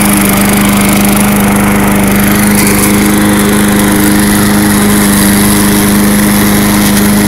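MTD Lawn Chief push mower's 3.75-horsepower engine running at a steady speed as the mower shreds dry leaves and grass, debris blowing out of the side discharge chute.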